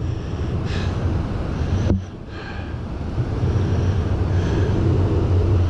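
Strong wind buffeting the microphone in a loud, low rumble, easing briefly about two seconds in, over the wash of surf breaking on the beach.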